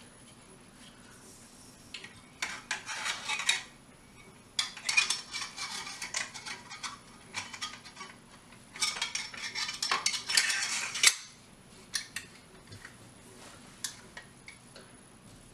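Metal parts of a pump-action shotgun clicking and rattling as the bolt assembly and fore-end are handled and fitted, in three bursts of clatter followed by a few single clicks.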